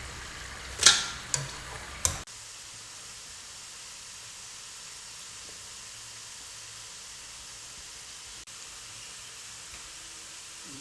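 A few sharp clinks and knocks of kitchen utensils in the first two seconds, the loudest about a second in, then a steady even hiss.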